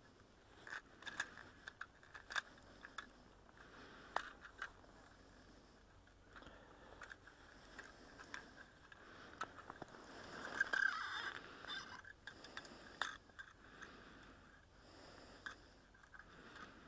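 Faint scattered clicks, taps and light scrapes of an ice-fishing rod and reel being handled, with a short stretch of rustling and scraping about two-thirds of the way through.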